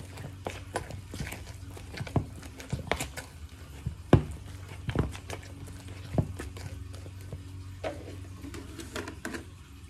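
Metal potato masher pressed again and again into mashed overripe bananas in a bowl, giving irregular soft knocks and clicks about one or two a second, the loudest about four seconds in. A steady low hum runs underneath.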